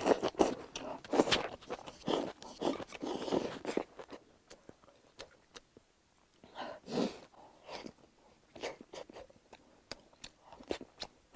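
A person eating rice with chopsticks from a bowl held to the mouth: quick clicks of chopsticks and close crunchy chewing for the first few seconds, then scattered bites and chews with small clicks.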